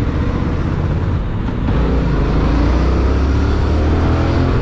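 Yamaha MT naked motorcycle's engine running while riding in traffic, its pitch climbing gradually from about two seconds in as the bike picks up speed.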